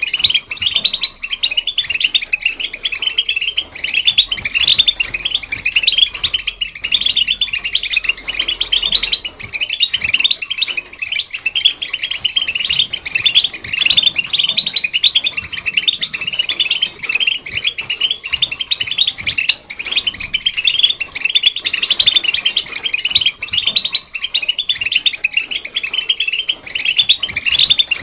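European goldfinch singing: a fast, continuous twittering of high chirps and trills.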